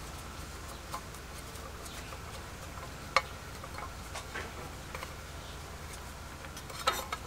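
Screwdriver turning a small screw in the painted base plate of a telephone bell set: scattered light metallic clicks and scrapes, with one sharper click about three seconds in and a quick run of clicks near the end.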